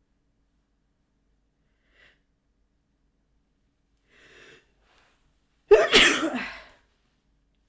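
A woman sneezing once, loudly, starting suddenly about six seconds in, with a faint breath-like sound a second or so before it.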